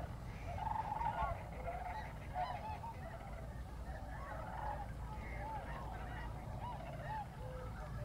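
A large flock of geese calling: many overlapping honks and yelps in a continuous chorus over a steady low rumble.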